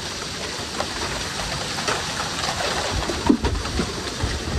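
Hail and heavy rain pelting down: a dense steady hiss with many small hard ticks of hailstones striking, and one louder knock about three seconds in.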